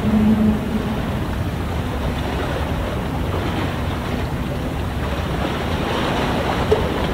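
Wind blowing across the microphone, a steady rushing noise with a low rumble beneath it. A short low tone sounds in the first half second.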